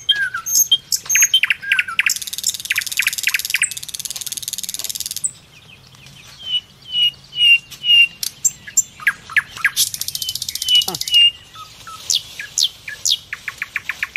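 Forest birds chirping and calling: many short high chirps and quick downward-sweeping notes, with two stretches of rapid high buzzing trills lasting a second or more each.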